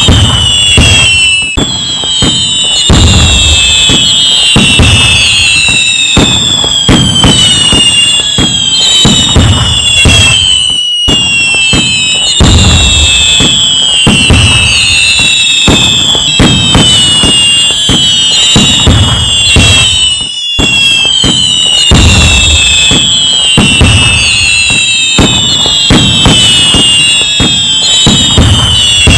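Dense fireworks: many whistling shells gliding down in pitch over one another, mixed with sharp crackling bangs and low booms, with a brief break about every nine to ten seconds.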